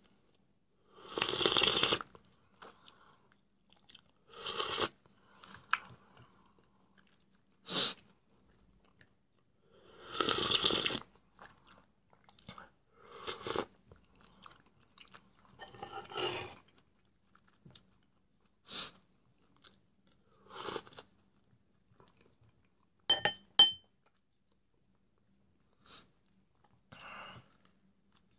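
Close-up eating sounds of a man eating soup from a spoon and chewing bread: short bursts of mouth noise every two to three seconds, with quiet between. Near the end come two quick sharp clinks with a brief ring.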